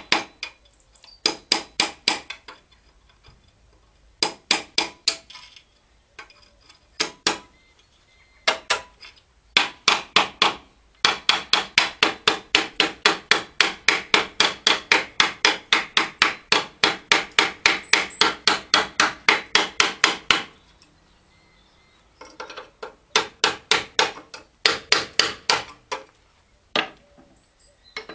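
Hammer strikes on the steel of a wood pellet boiler's burning head, ringing with each blow. They come in short bursts, then in a steady run of about four strikes a second for roughly ten seconds in the middle, then a few more bursts.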